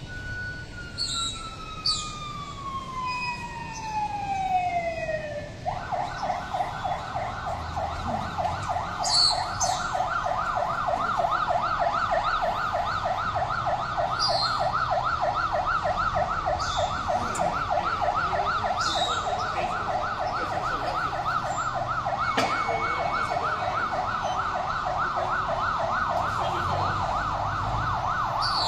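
Electronic siren: a long falling wail for the first six seconds or so, then switching to a fast yelp that warbles rapidly up and down for the rest, with a few sharp clicks over it.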